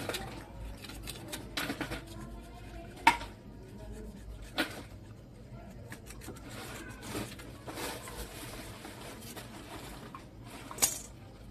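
Scattered knocks and clatter of hand work on a plastic water pipe, irregular, the sharpest about three seconds in, another a second and a half later, and one more near the end.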